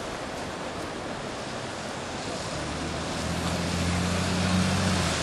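Steady rush of river rapids at Curragower Falls. From about halfway through, an engine's low hum grows louder over it.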